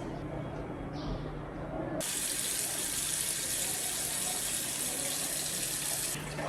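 Water running from a tap into a sink, turned on sharply about two seconds in and shut off near the end.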